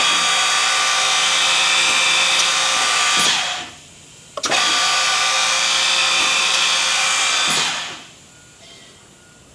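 The spindle motor of a Ganner GannoMat Optima 21-spindle dowel-hole drilling machine running twice, each run about three seconds long with a steady many-toned whine. Each run starts suddenly with a click and winds down when it is switched off.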